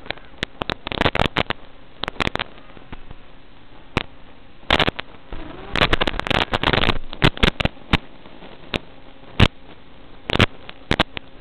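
Steady hiss broken by irregular bursts of crackling static from an analog FPV video link's audio channel, the crackles coming as the radio signal breaks up.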